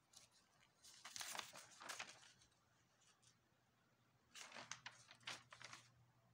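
Lined notebook paper rustling and crinkling as handwritten pages are lifted and turned by hand, in two short bouts: one about a second in and another just after four seconds.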